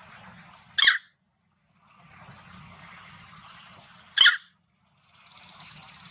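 Two short, sharp, high-pitched animal calls, one about a second in and another about four seconds in, over a faint hiss.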